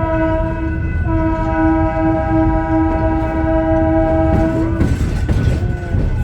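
Train horn sounding a chord of several notes over the train's low rumble: a short blast at the start, then a long blast of about four seconds that cuts off. After it come wavering high squeals near the end.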